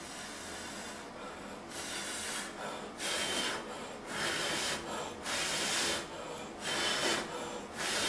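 A person blowing on a bow-drill ember wrapped in a tissue-paper tinder bundle to bring it to flame: about six long, hissing puffs of breath, roughly one a second, the later ones louder.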